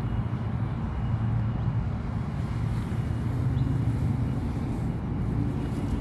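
Steady low rumble of city road traffic, with no single vehicle standing out.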